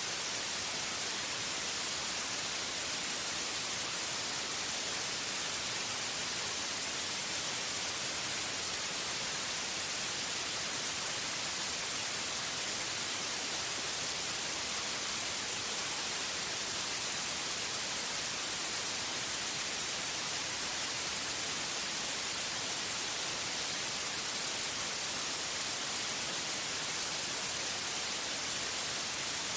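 Steady, unchanging white noise: an even hiss, brightest in the treble, with no change in level.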